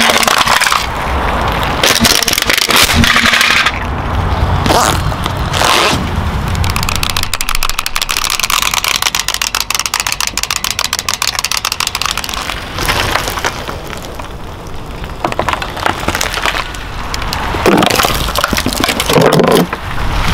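Plastic toys cracking and crunching one after another as a car's tyre rolls over them, with a long run of rapid clicking in the middle.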